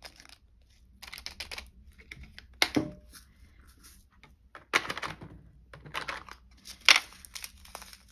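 Small plastic zip bags of diamond-painting drills crinkling as they are handled and opened, with clicks and clacks from plastic storage pots, a storage case and a drill tray; the sharpest clacks come about three, five and seven seconds in.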